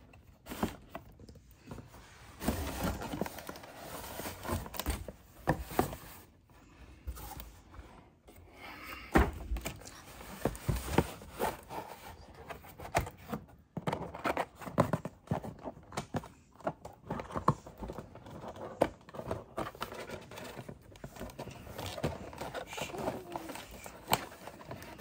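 A collectible doll's box and plastic packaging handled and pried apart by hand: irregular scrapes, knocks and clicks as a tightly packed piece is worked free.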